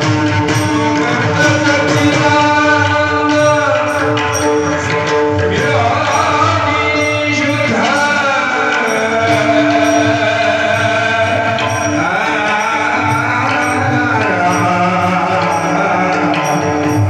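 Devotional singing over a steady held drone, with small hand cymbals striking a regular beat.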